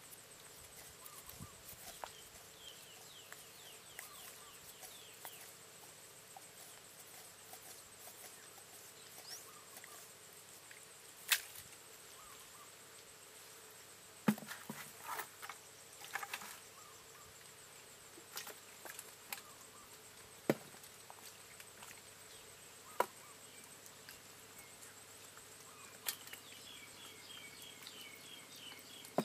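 Quiet outdoor ambience: a faint steady high insect drone, a handful of sharp clicks and taps scattered through, and a fast chirping trill near the end.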